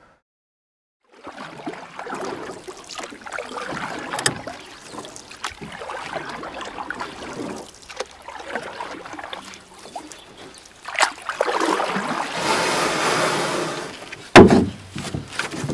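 Water splashing and lapping around a paddled canoe, coming in slow swells, with a few sharp knocks, the loudest near the end.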